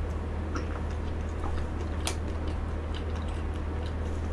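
Close-up mouth sounds of someone eating a spoonful of blueberry mousse cake: soft wet clicks and smacks while chewing, with one sharper click about two seconds in. A steady low hum runs underneath.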